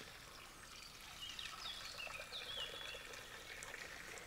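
A small songbird singing a few short whistled notes that rise and fall, starting about a second in, over a faint steady hiss.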